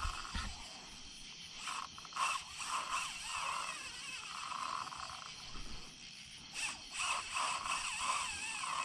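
Night insects chirring in a steady chorus, with a buzzing that comes and goes in short bursts.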